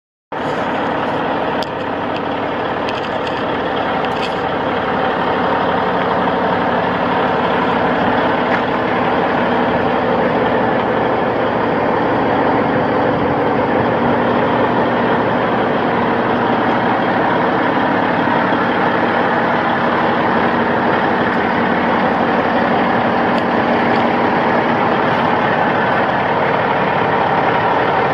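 Caterpillar 826C landfill compactor's diesel engine idling steadily.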